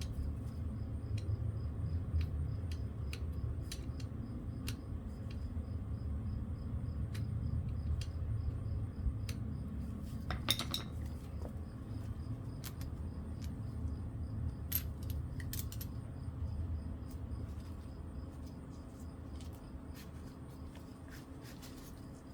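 Small metal parts and hand tools clinking and tapping now and then, as when a carburettor is being taken apart on a workbench, over a steady low hum.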